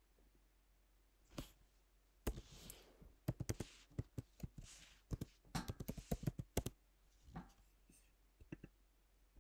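Typing on a computer keyboard: a quick run of key clicks starting a couple of seconds in, then a few scattered keystrokes near the end.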